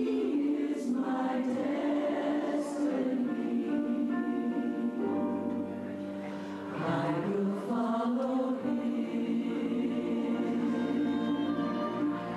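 A choir singing sustained notes in harmony, with a steady low accompanying note coming in underneath about five seconds in.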